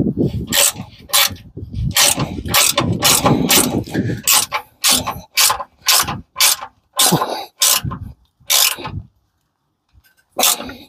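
Hand ratchet and socket tightening a bumper guard bolt all the way down: rapid clicking strokes of the pawl, about two a second, that stop about nine seconds in, with a couple of lighter clicks near the end.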